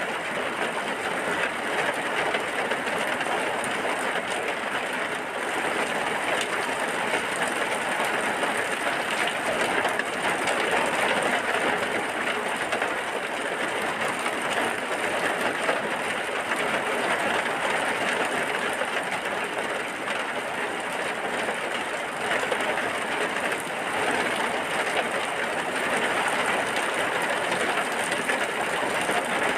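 Steady, dense rainfall, an even hiss of many drops with no breaks.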